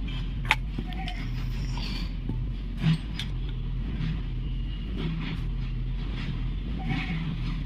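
A steady low mechanical hum with a few light clicks and knocks of metal parts being handled as a car starter motor's armature is checked.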